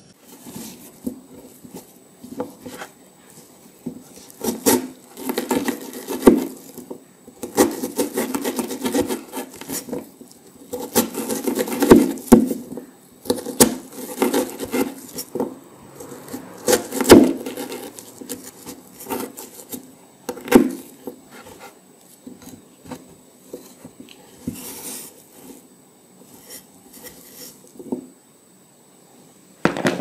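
Chef's knife chopping strips of peeled winter melon into cubes: crisp cuts through the flesh and knocks of the blade on the cutting board in irregular runs, thinning out near the end.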